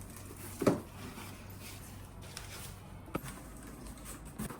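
A sharp knock about a second in, then two fainter clicks, over low background noise.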